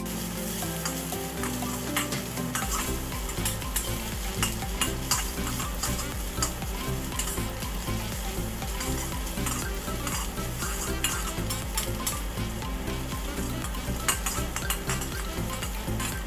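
Vegetables sizzling in oil in a steel wok while a metal spatula stirs and tosses them, with frequent clicks and scrapes of the spatula against the pan.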